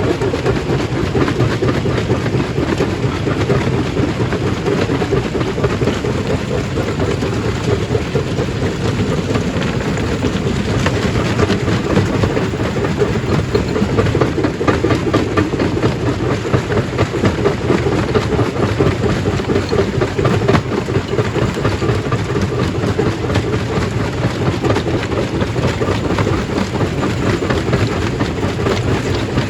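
Stone crushing machine running steadily while it breaks rock into gravel, with a steady low rumble and a dense stream of small knocks and rattles.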